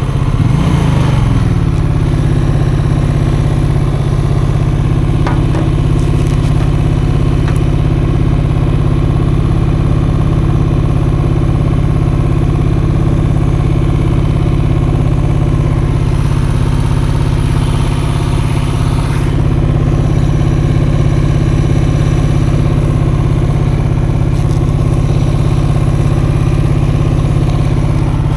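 Custom motorcycle engine running under way at a steady speed, its revs dropping briefly about a second in and then holding even.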